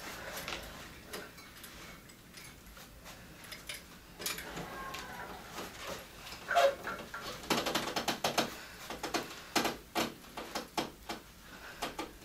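Strained grunts and heavy breaths from a man hanging from a pull-up bar under the weight of iron plates chained to his belt. Scattered clinks and knocks from the chain and plates run through it, and the grunting is strongest in the second half.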